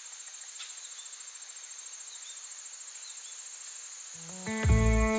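Crickets chirping in a steady, finely pulsing high chorus. About four seconds in, music comes in with sustained notes and a deep low boom that is louder than the insects.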